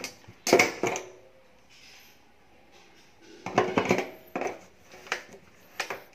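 Metal clinks and scrapes of a diesel generator's round steel fuel-tank cap being gripped and turned by hand, in a few short clusters.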